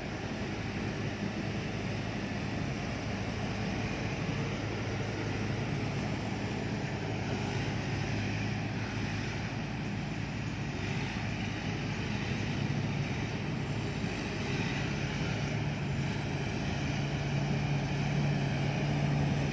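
Combine harvester engine running with a steady drone, growing a little louder and higher in pitch near the end as the machine comes closer.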